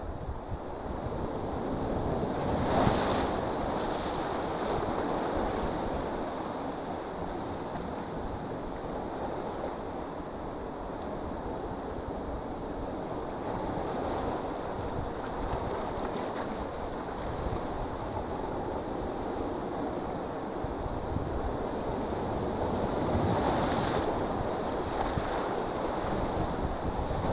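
Sea surf breaking and washing against shoreline rocks, a continuous rushing wash that surges louder about three seconds in and again near the end, with wind buffeting the microphone.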